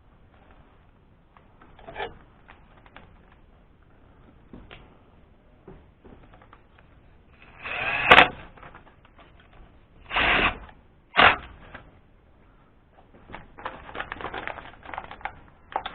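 Metal engine parts and hand tools being handled: scattered clicks and knocks, three louder clanks or scrapes in the middle (the first with a short ringing tone), and a run of rattling clatter near the end.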